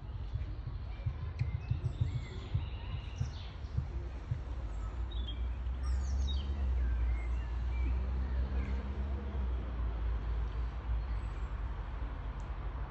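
Small songbirds chirping and singing, with a quick falling run of notes about six seconds in, over a low steady rumble.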